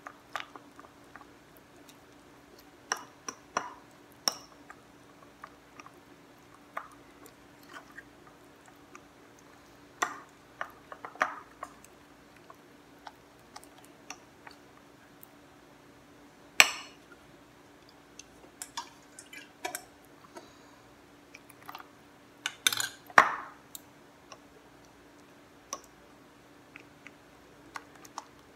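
Metal spoon stirring a thick batter in a ceramic bowl: irregular clinks and scrapes of the spoon against the bowl with soft wet mixing. The loudest clinks come a little past the middle and again about three-quarters through.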